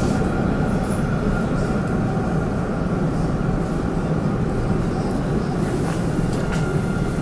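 Tram running along its track, heard from inside the car: a steady low rumble of the wheels on the rails, with a faint steady high tone over it and a few light clicks near the end.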